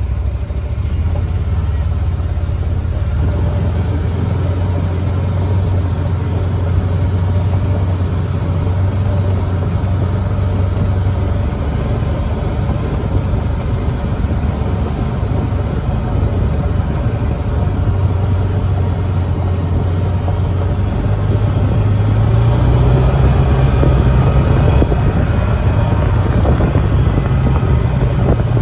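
Engine of an open farm vehicle running steadily as it drives, with a low hum under wind and road rumble; the engine note rises about three-quarters of the way through as it speeds up or takes more load.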